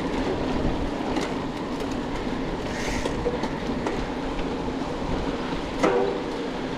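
Mountain bike riding noise: tyres and drivetrain rattling steadily over a rough surface, with a single sharp knock about six seconds in.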